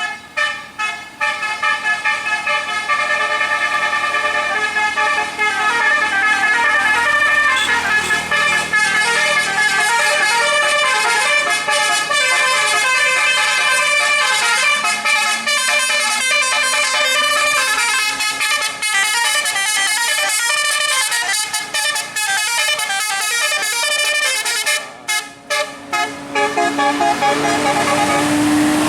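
Bus telolet horn, a multi-tone musical air horn, playing a fast melodic run of chords that change every fraction of a second, broken by a few short toots near the end. Underneath, a low drone slowly rises in pitch through the second half.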